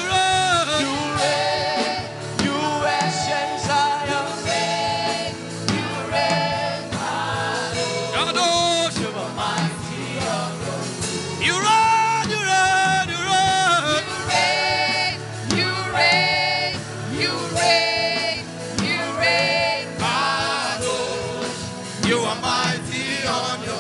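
Gospel worship music: singing voices holding long, wavering notes over steady instrumental accompaniment.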